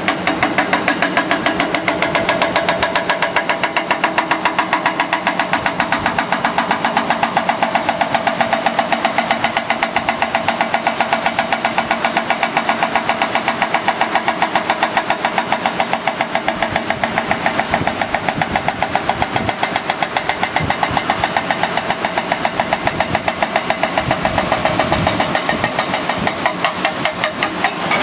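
Hydraulic breaker on a tracked excavator hammering rock, a fast, steady run of sharp blows, several a second, over the excavator's diesel engine.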